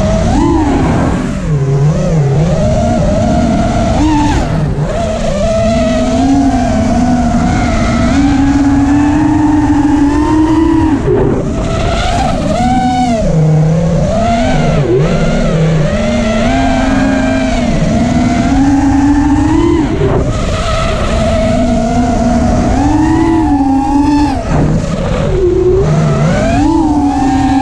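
FPV racing quadcopter's motors and propellers whining, the pitch swooping up and down with the throttle throughout the flight, over a low rumble of wind on the onboard microphone.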